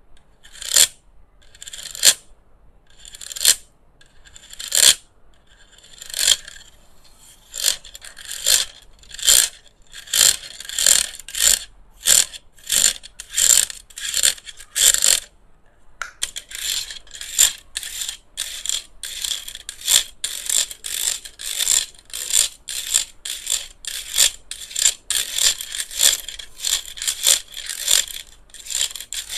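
A small plastic handheld electric fan being handled for ASMR: a series of short, crisp, scratchy strokes on its casing, with no motor running. They come about one every second and a half at first, quicken to two or three a second, pause briefly about halfway, then go on fast and dense.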